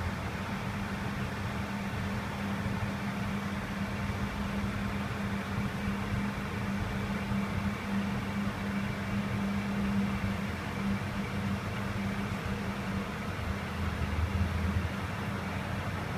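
Lagun CNC bed-type milling machine running with a steady mechanical hum and whir. The hum shifts toward a lower pitch near the end.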